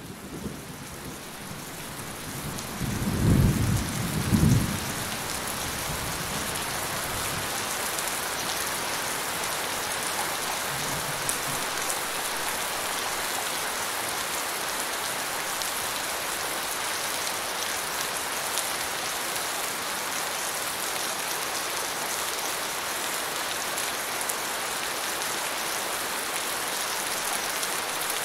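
Steady rain falling, fading in over the first couple of seconds. A low double rumble of thunder comes about three to five seconds in.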